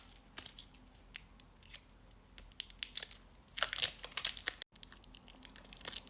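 Product packaging being handled: scattered light clicks and taps, with a short burst of paper or cardboard rustling about three and a half seconds in.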